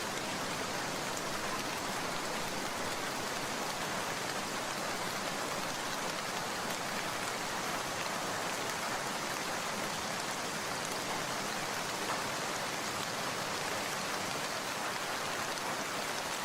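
Steady rain falling, an even hiss with faint scattered drop taps.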